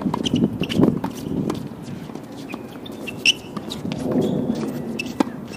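Sharp knocks of tennis balls struck by rackets and bouncing on a hard court during a doubles rally, with the loudest hit about three seconds in and another just after five seconds.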